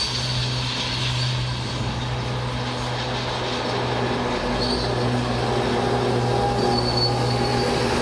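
Shantui SD16 crawler bulldozer's diesel engine running with a steady low hum as the machine travels on its tracks over loose dirt, with faint high squeaks coming and going.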